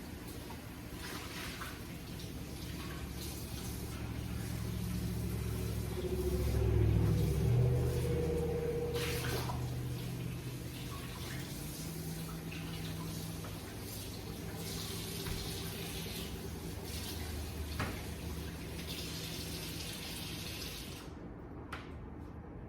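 Water running from a kitchen tap into the sink while a muffin pan is washed under it; the flow swells louder around the middle and cuts off suddenly near the end as the tap is shut.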